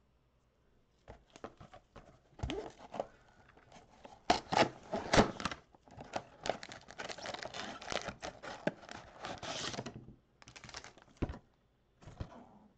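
A 2021 Donruss Football mega box being torn open by hand and its stack of foil card packs pulled out, cardboard tearing and packs crinkling, starting about a second in. A few sharp clicks stand out about four to five seconds in, and the handling trails off into short bursts near the end.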